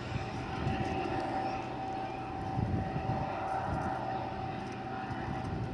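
Distant train running: a low rumble with a steady whine held throughout.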